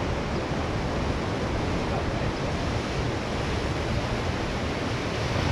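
Ocean waves breaking and washing steadily on the shore, with wind rumbling on the microphone.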